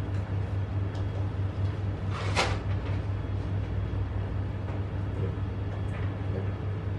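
Steady low room hum, with one short hiss-like noise a little over two seconds in.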